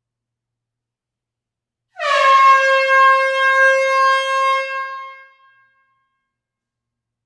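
Air horn sounding one blast in an enclosed hall, starting about two seconds in: a single loud note held about three seconds that dips slightly in pitch as it starts, then fades out.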